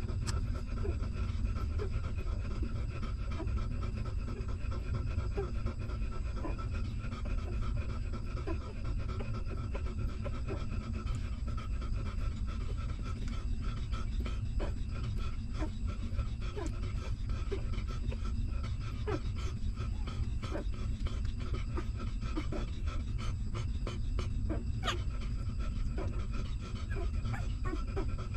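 Mother dog panting steadily while her newborn puppies nurse, with many small irregular wet clicks of the puppies suckling, over a low steady rumble.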